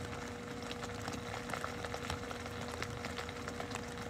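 Steady low outdoor background noise with a faint constant hum; no distinct event stands out.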